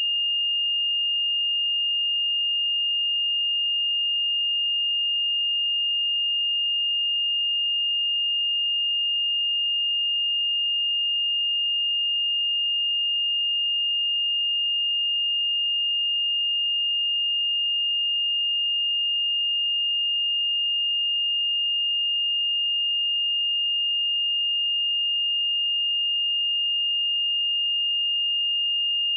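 A steady, pure 2826 Hz sine-wave test tone, one unchanging high-pitched note at constant loudness.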